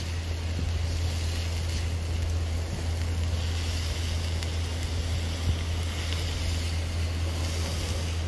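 Chopped vegetables sizzling in an oiled wok over a barbecue fire as a wooden spatula stirs them, over a steady low rumble.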